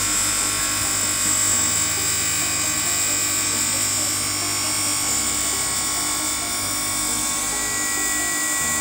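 Stone edge polishing machine running, its grinding wheels shaping the edge of a stone slab under water spray: a steady high-pitched whine with hiss.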